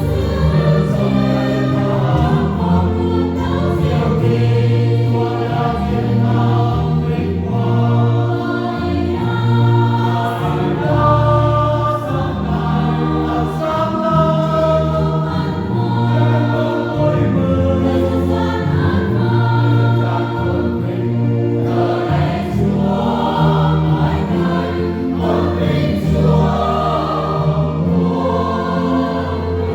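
A church choir singing a Vietnamese Easter hymn in parts over sustained low instrumental accompaniment.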